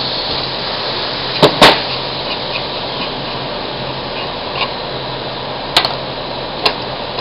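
A few sharp metal clicks and knocks: a wrench working a die grinder's neck loose while it is held in a vise. Two loud clicks come about one and a half seconds in and two lighter ones near the end, over a steady background hum and hiss.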